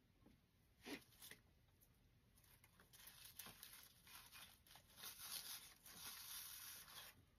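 Faint rustling and scraping of artificial flower stems being pushed into a dry grapevine wreath, with two light clicks about a second in.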